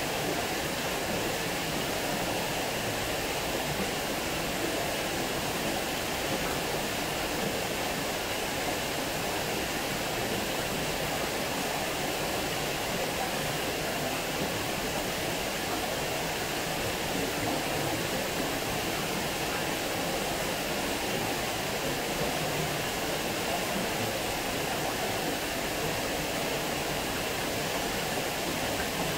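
Water pouring steadily over a small weir and splashing into the pool below: a constant, even rush.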